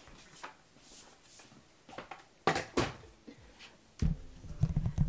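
A few scattered clicks and knocks of things being handled, the loudest about two and a half seconds in, then an uneven low rumble of handling close to the microphone from about four seconds in.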